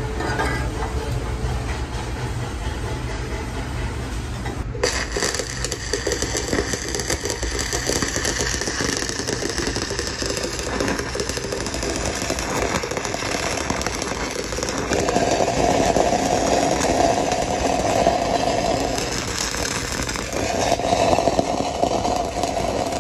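Stick-welding arc of a 3/32-inch E6010 electrode at about 70 amps running a root pass in a pipe joint: it strikes suddenly about five seconds in, then crackles steadily, getting louder about two-thirds of the way through. Before the strike there is only a low hum.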